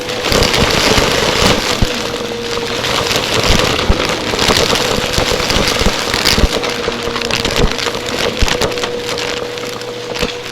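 Vacuum cleaner running, its motor giving a steady whine under a dense crackling with many sharp clicks.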